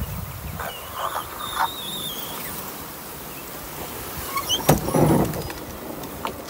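Canoe being shifted and dragged over grass and brush by hand: the hull rubbing and scraping, with a few knocks and a sharp bang about four and a half seconds in.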